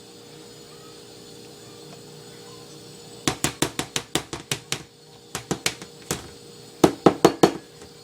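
Quick runs of sharp taps in three bursts, a measuring cup knocked against a bowl to shake the flour out of it.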